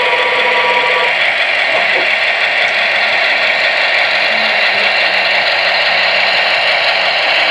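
Model EMD F7A diesel locomotive running with its onboard sound: a low diesel engine rumble under the steady rushing rattle of wheels on the track, with a held horn chord that cuts off about a second in.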